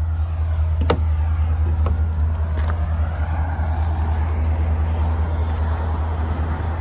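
Motorhome's 7.3L V8 engine idling with a steady low rumble, with a sharp click about a second in as the side entry door is opened.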